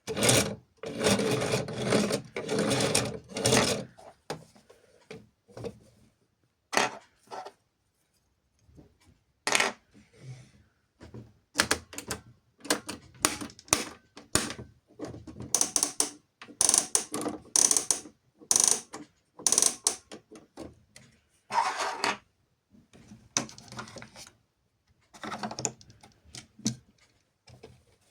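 Plastic toy washing machines being handled, making short, irregular bursts of clicking and rattling.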